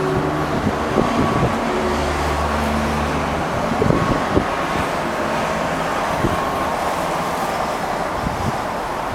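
Steady road traffic noise, with a vehicle engine's low hum around two to three seconds in and a few light knocks.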